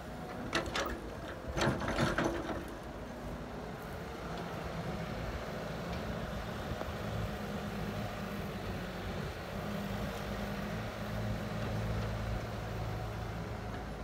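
Heavy diesel engines of an excavator and dump truck running steadily. A few sharp clattering knocks in the first couple of seconds as the excavator's bucket work and soil hit the truck.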